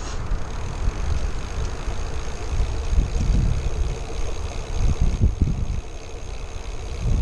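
Wind buffeting an action camera's microphone on a moving road bike, a low irregular rumble with gusts that swell a few times, mixed with tyre noise on asphalt.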